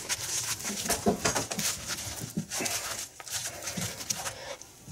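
Cable cutter of Knipex electrician's multi-pliers slowly crunching and creaking through a thick 5-core 10 mm² copper cable under heavy hand pressure, in irregular bites; the cut is hard going. Played back slightly sped up.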